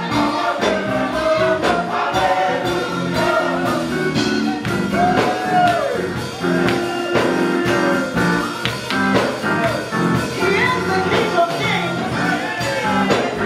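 Gospel choir singing a praise song with instrumental accompaniment, the voices holding and sliding between sustained notes.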